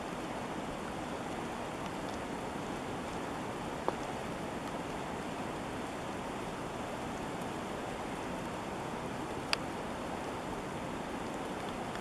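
Steady rush of river water flowing out below a dam, with two brief clicks, one about four seconds in and one near the end.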